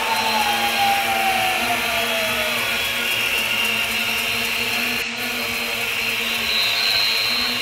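Large crowd applauding and cheering at length. Under the noise run a few steady horn-like tones, and a falling whistle-like tone sounds in the first couple of seconds.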